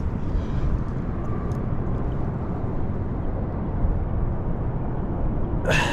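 Steady, uneven low rumble of wind buffeting the microphone, with a short breathy rush near the end.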